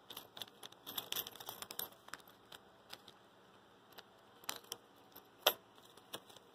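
Plastic packaging crinkling and small steel screws clicking in a zip bag as the packed Stirling engine kit parts are handled. A dense crackle in the first two seconds gives way to a few separate clicks, the sharpest about five and a half seconds in.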